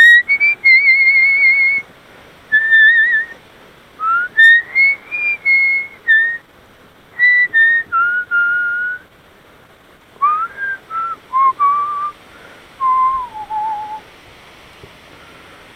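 A person whistling a wandering tune: a string of held notes with short slides between them, ending about fourteen seconds in.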